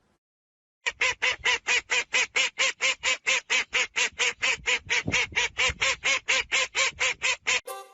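A fast, evenly spaced run of about thirty-five short quack-like honks, roughly five a second, starting about a second in and stopping just before the end.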